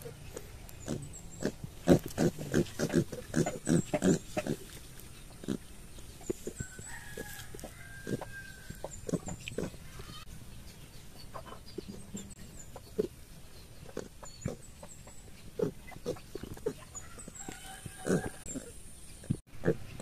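Piglets grunting: many short grunts in quick succession in the first few seconds, sparser through the middle, then busier again near the end.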